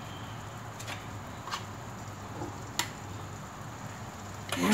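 Salmon fillets frying quietly in a pan: a few faint sharp ticks, about a second apart, over a low steady hum.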